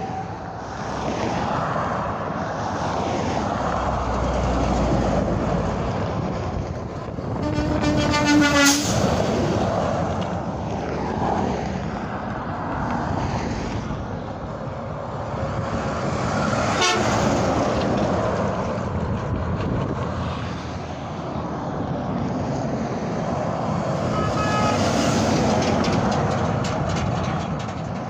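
Highway traffic noise rising and falling as trucks pass, with one truck air horn blast about seven and a half seconds in, lasting about a second and a half. A fainter, shorter tone sounds near the end.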